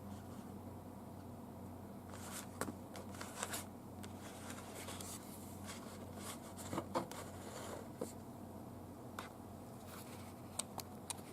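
Scattered small clicks and rustles of objects being handled, over a steady low hum, with a cluster of clicks a couple of seconds in and another sharp one about halfway through.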